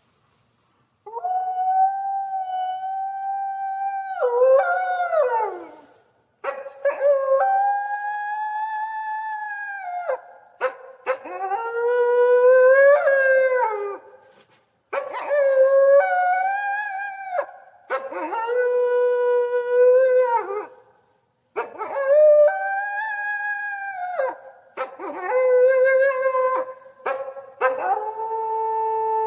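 Coyotes howling: a string of about eight long howls, each held on a steady pitch and then breaking and sliding down, with quavering bends between them.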